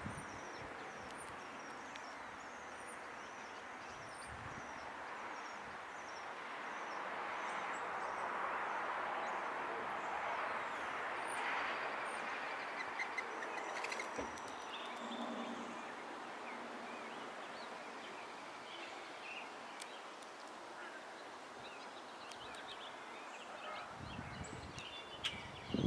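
Outdoor backyard ambience: a small bird repeats short high chirps about twice a second for the first several seconds, over a steady rushing noise that swells and fades in the middle. Low rumbling thumps come in near the end.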